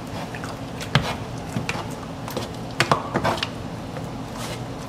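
A utensil stirring a thick pot of red beans, rice and sausage, scraping and clinking against the metal pot, with a sharp clink about a second in and a quick run of knocks around three seconds in.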